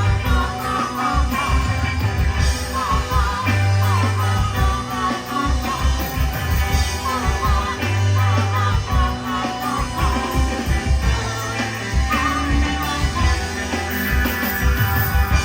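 A rock band playing live: drums and bass under electric guitar, with a wavering melody line on top.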